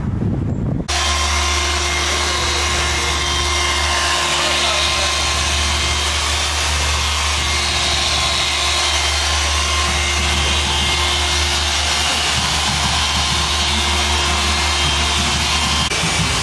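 Dual-action polisher running steadily on the car's paint during a one-step polish, a steady machine hum that cuts in about a second in.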